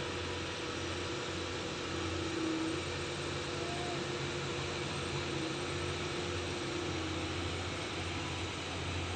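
Steady engine drone with a low hum and a constant higher tone, under an even hiss.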